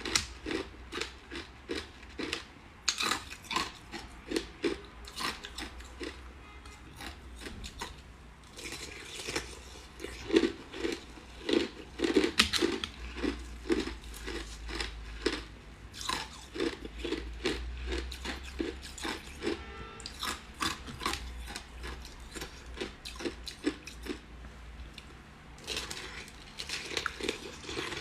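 Close-miked crunching and chewing of ice: repeated irregular bites cracking and grinding the ice, with short pauses between runs of crunches.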